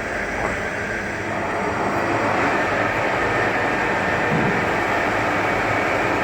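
Falafel portioning machine running steadily, its motor and forming mechanism making a constant mechanical noise.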